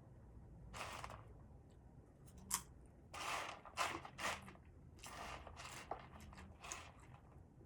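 Someone eating crunchy food close to the microphone: a series of short, irregular crunches and bites with a few sharp clicks.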